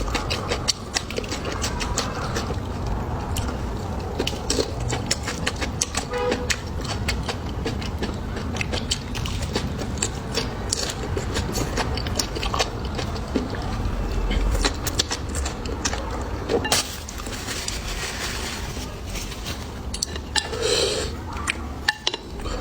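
Close-miked chewing and gnawing on braised pig tail: a dense, irregular run of wet clicks and smacks over a low hum, with a brief pitched sound near the end.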